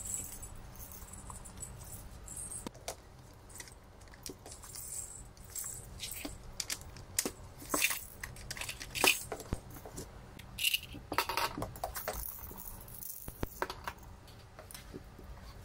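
Plastic baby rattles jingling and clattering against each other and a plastic basket as they are handled and lifted out, in irregular clicks and short rattles.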